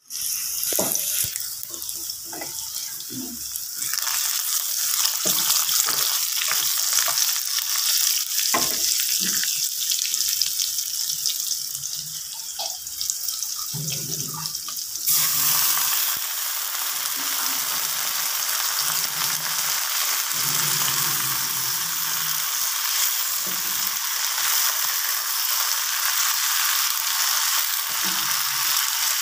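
Oil sizzling in a wok as dried red chillies, curry leaves, onion and garlic fry, with scattered knocks of a spatula. About halfway through, fresh spinach leaves are tipped into the hot wok and the sizzle suddenly grows louder and fuller as they are stirred.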